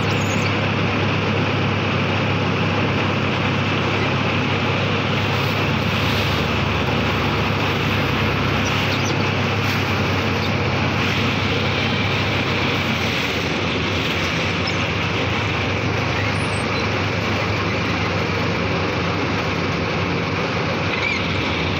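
Boat motor running steadily under way, with water rushing past the hull; its low hum fades somewhat after about nine seconds.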